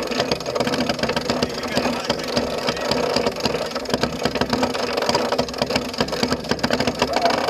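Sailboat winch ratcheting, a dense run of irregular clicks, as a sheet is worked in, over a steady noisy bed of wind and water.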